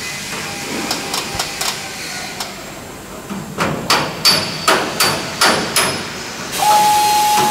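Hammer blows on the aluminium skin of a Lancaster bomber's fuselage panel: a few scattered strikes, then a steady run of about three sharp blows a second. Near the end a steady whistling tone starts up.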